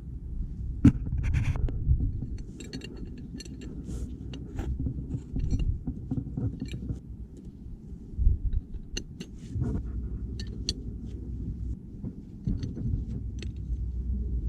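Scattered sharp metallic clinks and scrapes of hand tools and small metal parts being handled, over a steady low rumble.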